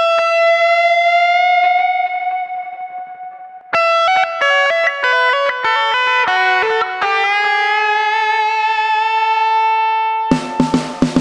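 Instrumental music without vocals: a lead electric guitar with effects holds a long note, then plays a quick run of notes and settles on another held note. Drums and bass hit in near the end.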